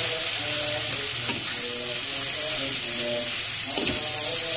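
Stir-fry sizzling in a wok as a metal spatula stirs and scrapes tiwul (cassava rice) and water spinach through the hot oil, a steady hiss with light scraping.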